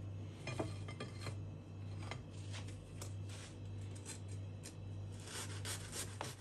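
A long kitchen knife sawing through a homemade bread bun on a wooden cutting board: a quick run of short, uneven rasping strokes as the blade cuts through the crust and crumb, over a steady low hum.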